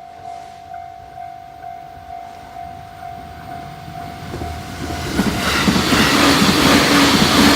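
Japanese railway level crossing warning bell ringing as a steady repeated electronic ding, about twice a second, with a slight echo. About five seconds in, a JR 209 series electric train arrives and passes, its wheels clattering rhythmically over the rail joints and drowning out the bell.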